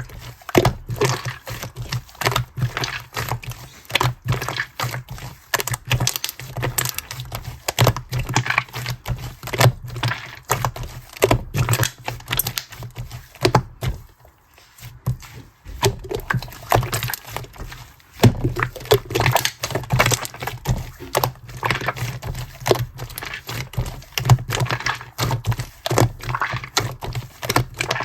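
Hands squeezing and poking slime, making a dense, irregular run of small clicks and crackles, with a short pause about halfway through.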